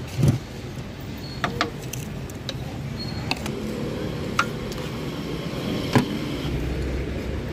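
Street traffic with a steady background hum and a low rumble of a vehicle near the end, with a few sharp clicks and clinks over it.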